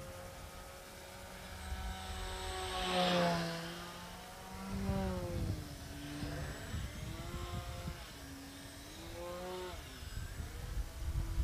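Micro F3A RC pattern plane's electric motor and propeller whining as it flies aerobatic manoeuvres, the pitch rising and falling with throttle and as it passes, loudest about three seconds in.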